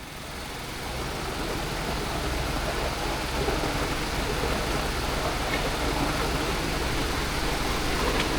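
Steady road and tyre noise inside a moving car's cabin, an even hiss and rumble with no distinct events.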